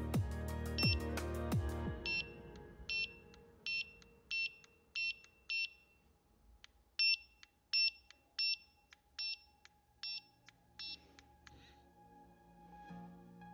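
Carp-fishing bite alarm receiver sounding its alarm: a string of about a dozen short, high electronic beeps, roughly one every 0.7 s, with a brief pause midway. This is the tone that signals a bite on the line.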